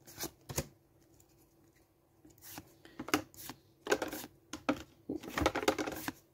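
Pokémon trading cards being slid off the front of a hand-held stack and flicked to the back one by one: short papery swishes and snaps at uneven intervals, two near the start, then a pause of a second or so, then a quicker run through the second half.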